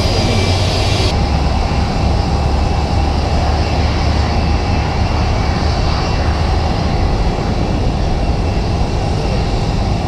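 Steady rumble of jet airliner engines running at an airport, strongest in the low range. The higher hiss drops away about a second in.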